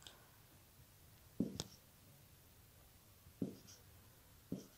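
Marker pen writing digits on a white board: a few short, separate strokes, a quick pair about a second and a half in, then single strokes near the middle and the end.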